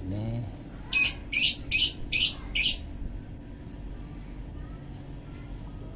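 Five sharp, high-pitched chirps in quick succession, about two a second, from a small bird, a female sunbird held in the hand, followed by a few faint chirps.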